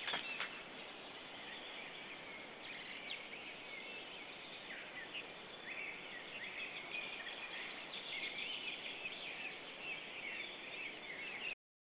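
Small forest birds singing in a dense chorus: many short overlapping chirps and trills over a steady hiss. Two sharp clicks come right at the start, and the sound cuts off abruptly near the end.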